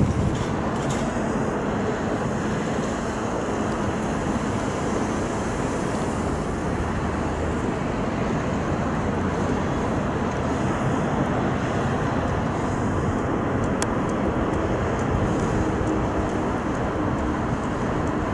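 Airbus A220-300's Pratt & Whitney PW1500G geared turbofan engines running steadily at taxi power as the airliner rolls slowly along the runway, heard as an even, unchanging noise.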